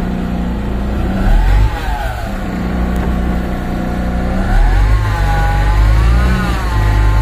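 MAN diesel dump truck engine running just after starting, revved up and back down a couple of times, its pitch rising and falling.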